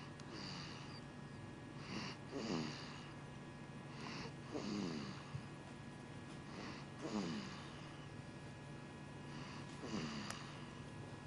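Snoring in slow, regular breaths: about five snores roughly every two and a half seconds, each a rasp that drops in pitch, with a breathy hiss.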